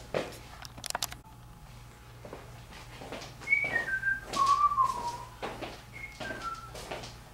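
A person whistling a couple of short phrases of falling notes, the second a shorter repeat, among scattered rustling and knocks of someone moving about. A quick run of clicks comes about a second in.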